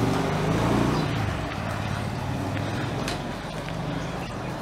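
A motor engine running off-screen, with a low, steady hum that shifts in pitch and fades somewhat after the first second.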